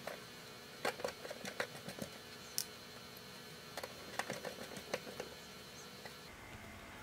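Faint, scattered small clicks and taps of wires being handled and fitted into a screw terminal strip inside a steel electrical enclosure, stopping about five seconds in.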